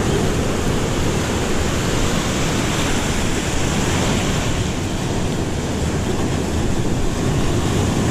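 Ocean surf washing and churning around shoreline rocks, a steady loud rush of water.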